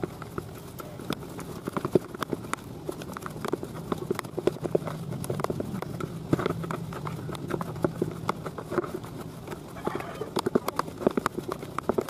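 White plastic scoop pressing and scraping fishing-bait dough against a plastic basin, making many short, irregular knocks and taps.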